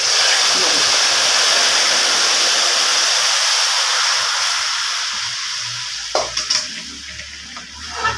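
Hot sugar syrup hitting semolina roasted in ghee, setting off a loud sizzle that starts suddenly and slowly dies away. Later a slotted steel spoon stirs and knocks against the pot a few times.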